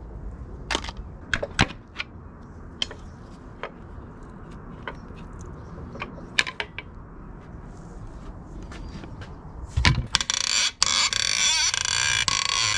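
Metal tools and engine parts clinking and knocking in a series of scattered light clicks. About ten seconds in there is a heavy thump, then a loud continuous rattling hiss.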